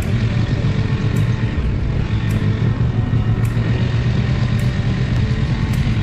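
Bajaj Dominar 400's single-cylinder engine running steadily at cruising speed, with wind rushing over the action camera's microphone.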